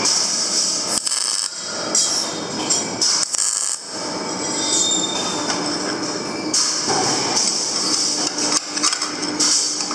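MIG welder arc crackling and hissing as steel rods are welded to a plate, in runs broken by short pauses. A few sharp metal clinks near the end.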